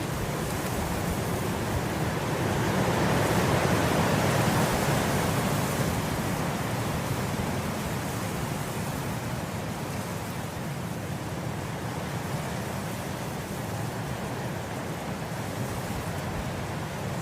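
Steady wind blowing through grass, a rushing noise that swells in a gust a few seconds in and then eases back.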